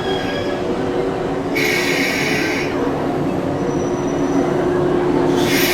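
JR West Biwako Line electric train passing through a station: steady running noise with a held hum, and two short bursts of hiss, about one and a half seconds in and again near the end.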